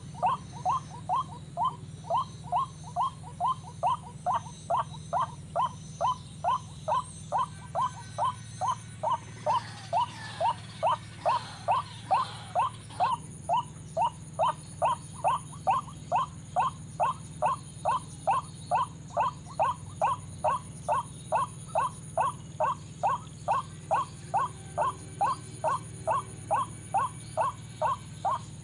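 White-breasted waterhen (ruak-ruak) call played as a trapping lure: one short call repeated with machine-like regularity, about two to three times a second. A brief rustle about nine seconds in.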